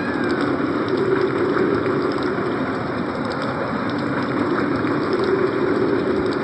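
Synthesized winter storm effect from a Casio CT-X5000 keyboard: a steady wind-like hiss with a low howling band that swells twice and eases, and faint scattered ticks.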